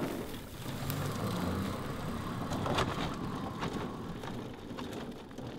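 Pedal-powered recumbent tricycle rolling over a dirt and gravel track: tyres crunching, with scattered clicks.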